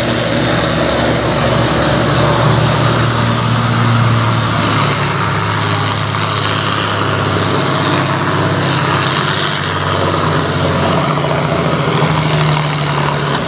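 Farm pulling tractor's engine running hard and steady under full load as it drags a weight-transfer sled down the track.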